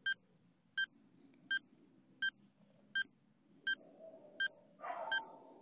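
Countdown timer beeping: short, identical electronic beeps about every three-quarters of a second, eight in all, ticking off the seconds of the quiz countdown.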